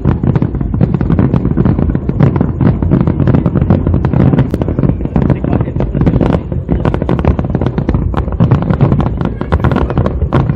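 Fireworks display in a dense barrage: rapid, overlapping cracks and booms of aerial shells going off continuously, starting suddenly.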